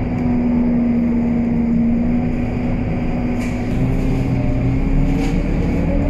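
Cabin sound of a Scania K230UB city bus under way: its five-cylinder diesel and drivetrain running with a steady whine over a low rumble, the pitch rising slowly as the bus picks up speed. A couple of faint rattles come through.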